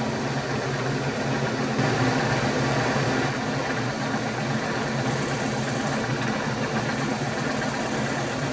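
Milling machine spindle running steadily with a low hum while a drill cuts into a small metal block, the cutting noise growing a little louder about two seconds in.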